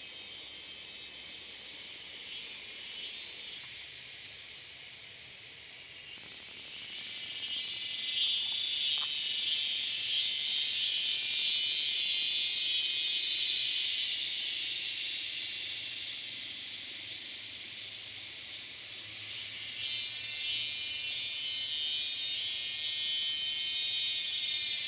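Steady, high-pitched chorus of forest insects buzzing, growing louder about six seconds in.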